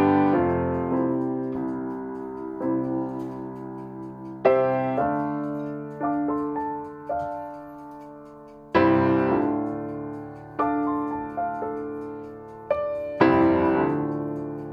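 Slow solo piano background music: chords struck about every four seconds and left to ring and fade, with single notes in between.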